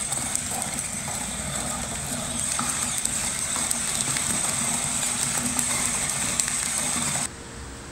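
Laelaps four-wheeled mobile robot base driving and turning over rough concrete, its wheels and chassis rattling with many small ticks over a steady high whine. Near the end it cuts off suddenly to a quieter, steady room hum.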